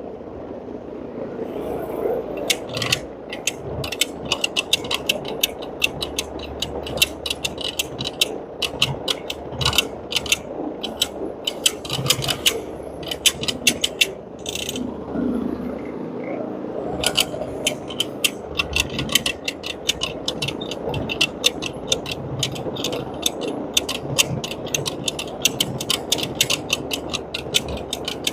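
Carpet cleaning machine running over carpet, a steady mechanical noise with rapid, irregular clicking and rattling throughout.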